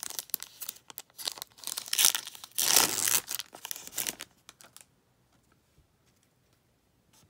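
Foil Yu-Gi-Oh! Speed Duel booster pack being torn open by hand, the wrapper crinkling and ripping, loudest about two to three seconds in. The crinkling stops about five seconds in.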